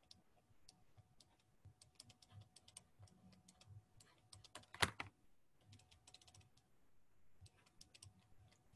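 Faint clicking in quick runs, with one louder click about five seconds in.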